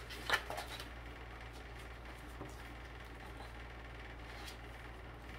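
Paperback book being handled and opened: a short crisp rustle of the cover and pages about a third of a second in, then faint page handling over a steady low hum.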